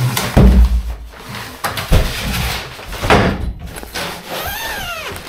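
Things being moved and set down during a garage clear-out: three loud thumps over about three seconds, then a short squeak that rises and falls near the end.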